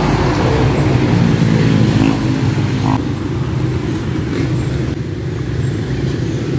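A motor vehicle's engine running steadily close by, with street traffic noise, easing off a little about halfway through.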